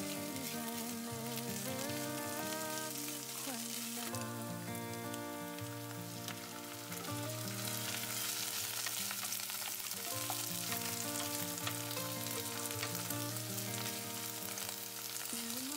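Chopped onion, ginger and garlic frying in oil, sizzling steadily, louder from about halfway through, while a wooden spatula stirs and scrapes them around the pan. A song plays in the background throughout.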